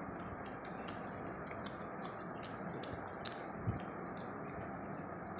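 Faint eating sounds: soft clicks and smacks from hands mixing biryani rice on plates and from chewing, over a steady low hiss. Two slightly louder clicks come about three and a half seconds in.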